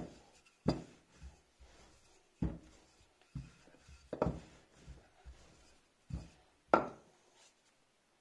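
Wooden rolling pin rolling out dough on a floured countertop: a soft rubbing roll broken by about seven irregular wooden knocks as the pin is pressed and pushed against the counter. The knocks stop about seven seconds in.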